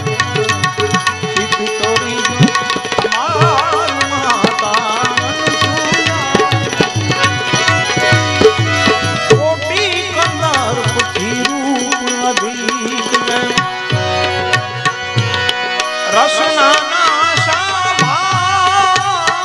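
Male voice singing an ornamented, wavering devotional melody in phrases, over the sustained reedy chords of a Bina harmonium and a steady hand-drum rhythm.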